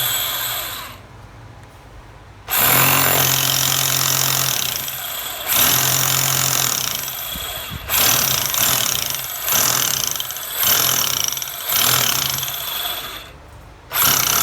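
National 6813 24 V cordless hammer drill run in about eight short trigger bursts. Each burst starts abruptly and fades off as the motor winds down, and the later bursts come about a second apart.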